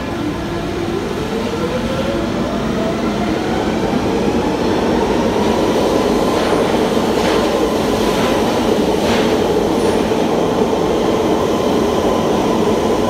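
London Underground tube train pulling out of a platform. Its motor whine rises in pitch over the first few seconds as it accelerates, then holds steady over a loud running rumble, with a few sharp clicks of the wheels over the rails.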